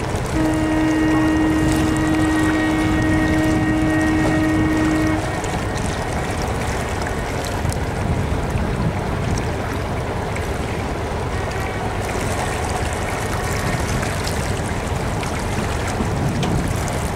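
A ship's horn sounds one long, steady blast of about five seconds. Under it and after it runs a steady noise of wind and water.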